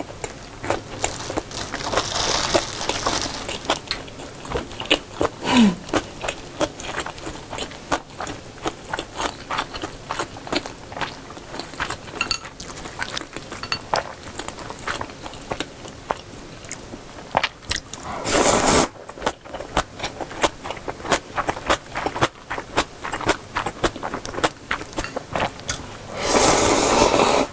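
Close-miked eating: a person chewing a large mouthful of gimbap (seaweed rice roll), with many small wet clicks and crunches. Past halfway and again near the end come two longer slurps as janchi-guksu noodles are sucked in from a small bowl.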